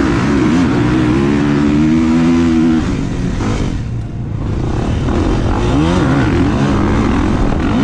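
Kawasaki KX450SR dirt bike's 450cc single-cylinder four-stroke engine at high revs, launching off a motocross starting gate and accelerating. The engine eases off about three seconds in, then revs up again, rising in pitch more than once.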